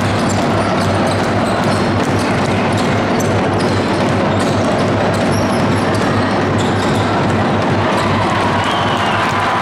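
Basketball game in play: ball bouncing on the court and short high squeaks over a steady crowd din.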